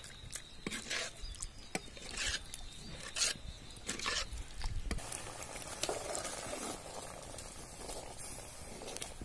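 Steel ladle stirring thick, simmering lentil dal in a metal pot: irregular scrapes and knocks of the ladle against the pot through the first five seconds or so, then softer simmering.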